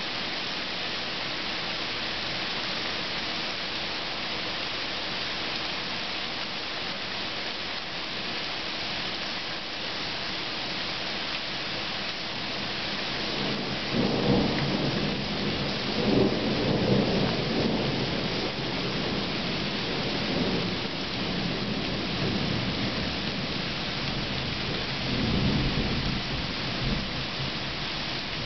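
Steady hiss of rain, with thunder rolling in about halfway through: a low rumble that swells in several peaks, then a further rumble near the end.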